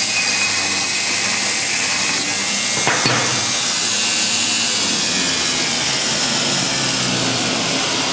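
2x72 belt grinder running, its abrasive belt grinding with a steady, loud hiss. There is a sharp click about three seconds in.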